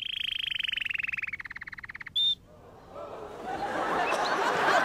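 Songbird trill: a fast, evenly pulsed roll that drops to a lower pitch about halfway through, ending with a short high chirp just after two seconds. From about three seconds in, theatre audience noise of chatter and clapping rises steadily.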